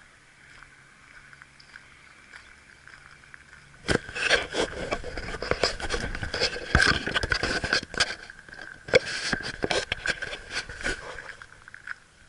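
Wheels rolling over loose gravel. Dense crunching and crackling starts suddenly about four seconds in and eases off near the end, over a faint steady high hum.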